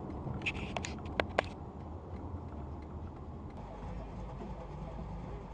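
Steady low road and engine rumble of a car as heard inside the cabin, with a few sharp clicks about a second in.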